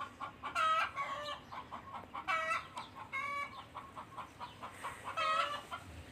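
Chickens clucking, with four louder calls standing out from a run of quick, short clucks.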